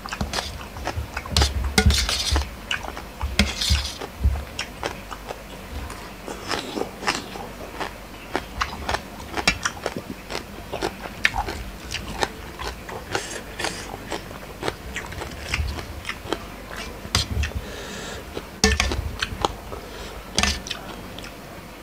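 Close-up chewing and crunching of crisp lotus-stem salad, with a metal spoon clinking and scraping against a stainless-steel bowl in irregular bursts.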